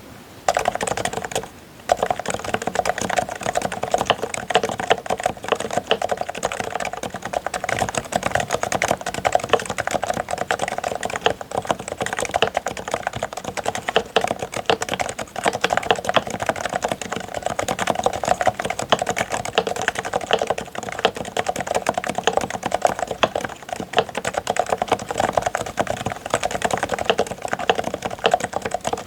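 Realforce RC1 keyboard with fully lubricated Topre switches being typed on fast and continuously: a dense run of muted keystrokes, with one short pause about a second and a half in.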